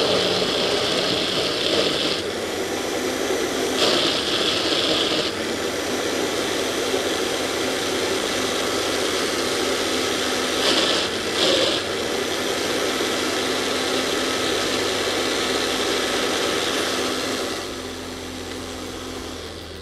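Blender motor running under load, its blades churning a thick mash of cooked fava beans and peas that is only starting to turn smooth. It grows harsher three times, briefly each time, and drops in level near the end.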